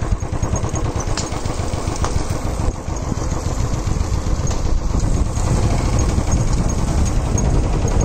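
Motorcycle engine running steadily as the bike is ridden along a road.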